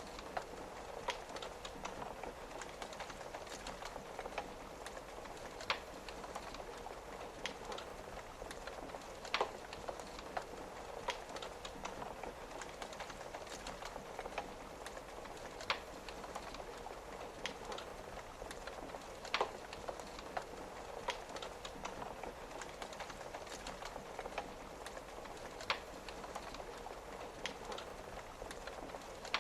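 Wood fire crackling, with sharp pops every few seconds, the loudest a few seconds apart, over a steady patter of rain on a window.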